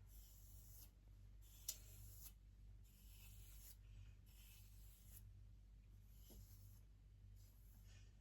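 Faint repeated rubbing strokes, roughly one a second, with a light click about two seconds in, over a low steady hum.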